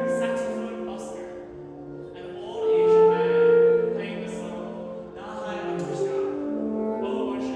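Saxophone quartet playing sustained, overlapping notes in several voices, swelling to its loudest about three seconds in.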